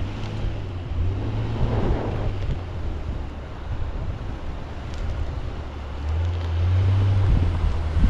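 Lifted Honda Passport's V6 engine running at low revs as the SUV crawls down a deeply rutted dirt trail, its hum growing louder about six seconds in as it works through the ruts. Wind buffets the microphone.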